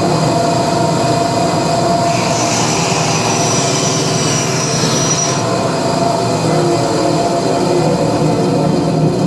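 Electric power saw running steadily as it cuts through a piece of timber.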